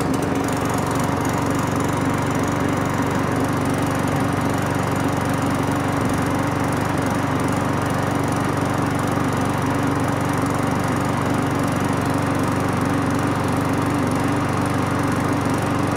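McCulloch rotary lawn mower's Briggs & Stratton 450-series single-cylinder petrol engine, running at a steady speed just after being pull-started.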